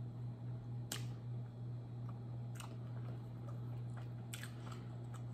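Close-up chewing of a mouthful of beef samosa, with a few sharp crisp clicks of pastry about a second, two and a half and four seconds in, over a steady low hum.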